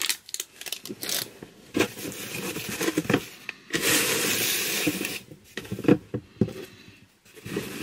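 Rustling and crinkling of packaging as hands rummage through a cardboard subscription box, in short irregular bursts with a longer continuous rustle from about four to five seconds in.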